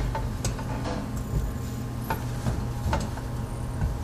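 A few scattered light clicks and taps as hands handle a recessed ceiling light's metal trim ring and bulb, over a steady low hum.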